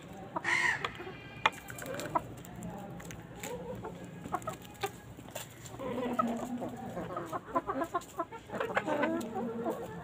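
A flock of hens and roosters clucking, with a short loud squawk about half a second in and a burst of busy clucking from about six to nine seconds. Sharp taps of beaks pecking close by sound throughout.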